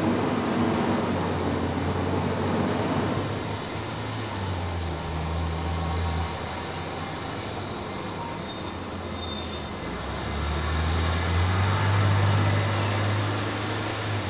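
A steady low mechanical rumble with a hiss, like a distant engine or machine, swelling twice and loudest near the end. A brief faint high-pitched chirp about halfway through.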